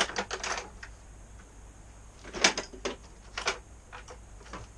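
Metal hand tools clicking and clattering in a toolbox as a screwdriver is searched for, a run of irregular sharp clicks with the loudest clack about halfway through.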